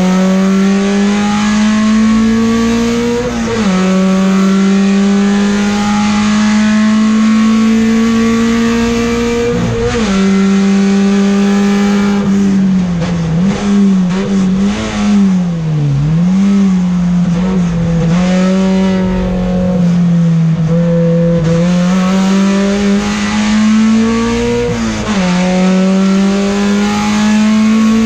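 Peugeot 405 STi race car's engine heard from inside the cockpit under hard acceleration. The pitch climbs steadily and then drops sharply at each upshift, three times. In the middle there is a stretch where the pitch dips and rises several times as the car lifts off and changes down.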